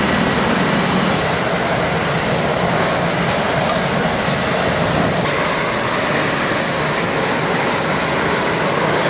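Jet aircraft engines running on a carrier flight deck: a steady, loud rush of noise, with a high whine that comes in about a second in and holds.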